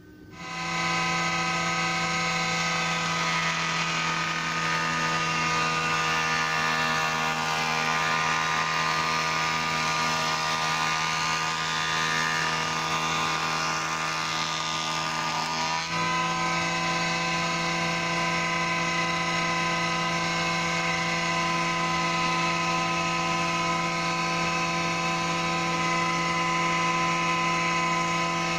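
Two-knife surface planer (jointer) switched on and spinning up within the first second, then running steadily at speed as a board is fed across its freshly sharpened cutter block. Its note shifts slightly about halfway through.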